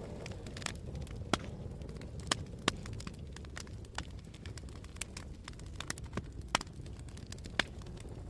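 Wood fire burning in a fireplace: a steady low rumble of flames with irregular sharp crackles and pops from the burning logs, a few louder snaps among them.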